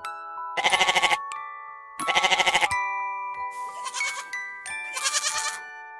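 Goat bleating several times, each call short and quavering, over gentle chiming background music.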